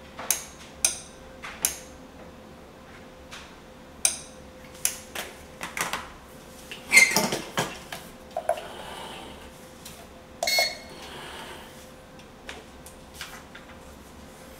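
Scattered clicks and knocks of things being handled, with two short rustling stretches, over a faint steady hum; the loudest knocks come about seven seconds in.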